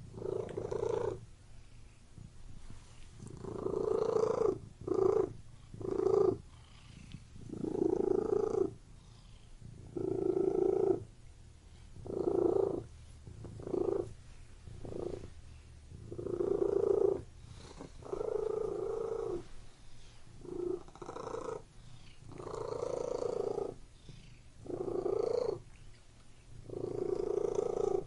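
Domestic cat purring steadily close up, each breath a rumbling swell, in and out about every one to two seconds.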